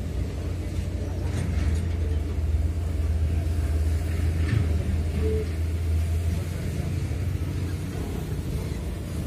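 Low, steady engine rumble of heavy diesel machinery, swelling over the first couple of seconds and easing off near the end.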